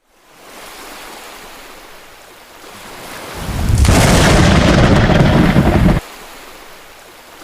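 Sea surf with wind blowing on the microphone. It swells into a loud rumble about three and a half seconds in, and that rumble cuts off abruptly about two seconds later.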